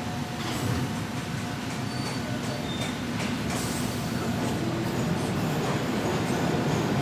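Metro train running on the rails, a steady rumble with a few short wheel squeals, growing slightly louder toward the end.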